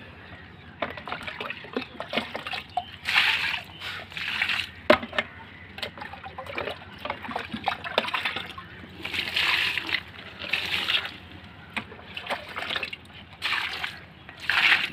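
Water being poured onto plants and garden soil, splashing and trickling in repeated surges about a second long.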